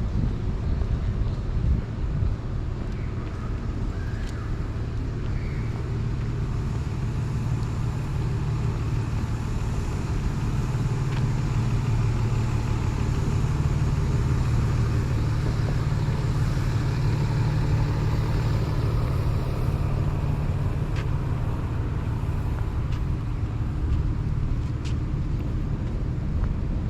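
Steady low rumble of outdoor road-traffic ambience, with a few faint clicks.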